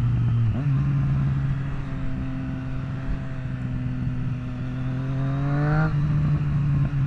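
A 2024 Triumph Street Triple RS's 765 cc inline-triple engine running under load through a Zard titanium aftermarket exhaust, heard from the rider's seat with wind rush. The engine note climbs in pitch and then drops abruptly about six seconds in.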